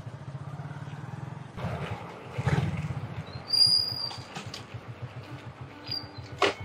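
Small commuter motorcycle engine running as the bike is ridden, its exhaust pulsing rapidly, then getting louder about two seconds in. A few short, high whistling squeaks sound near the middle and again near the end.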